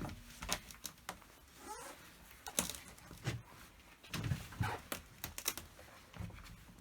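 Scattered light clicks and knocks of objects being handled, with a short squeak rising in pitch about two seconds in.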